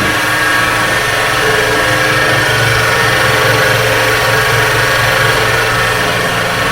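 AR 15.20 HN high-pressure washer running: a loud, steady low hum with a dense hiss over it.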